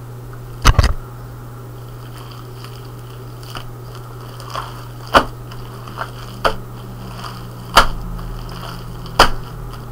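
Fluffy slime being kneaded and pressed by hand on a board, giving sharp wet pops and slaps, about five loud ones spread through, over a steady low hum.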